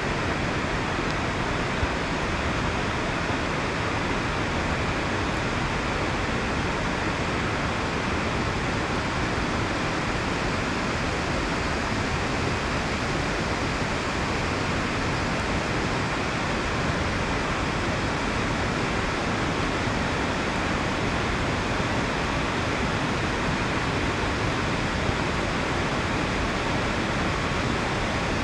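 Steady rain falling on the water and on the kayak's deck: an even, unbroken hiss.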